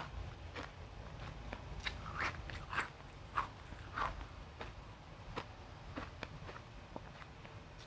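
Refrozen crushed ice being bitten and chewed close to the microphone: irregular sharp crunches, a few of them louder in the middle.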